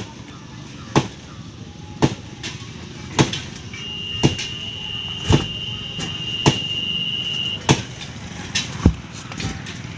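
Sharp knocks in a steady rhythm, about one a second, like steady hammering. A thin, high, steady tone is held for about four seconds in the middle.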